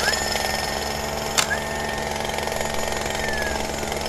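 Power-tool sound effect: a steady, rapid mechanical rattle like a drill or impact driver running, with a high whine that slides up near the start and holds, and one sharp hit about a second and a half in.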